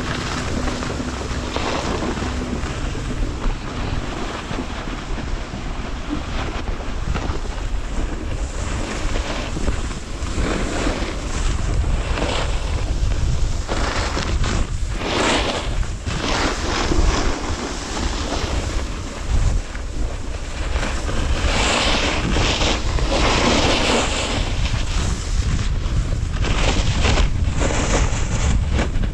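Wind buffeting the microphone while riding down a piste, with repeated hissing swells of a snowboard's edges scraping and sliding over packed snow, louder in the second half.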